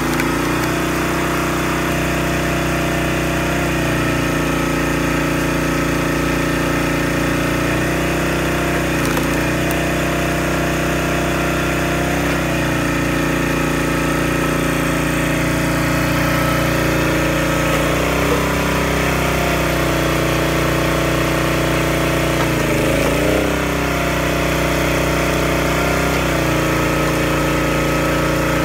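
Small gas engine of a 26-ton hydraulic log splitter running steadily. Its pitch dips briefly about four times as the engine takes load while the ram pushes through logs.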